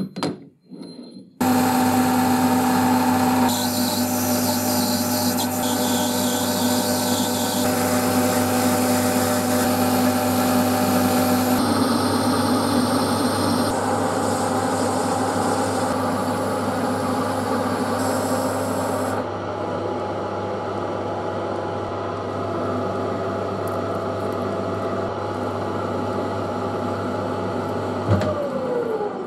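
Metal lathe turning a bar into a shouldered pin, then cutting a thread on it. It runs steadily with the tool scraping off chips, its sound changing abruptly several times as the work jumps between stages. Near the end the spindle winds down with a falling tone.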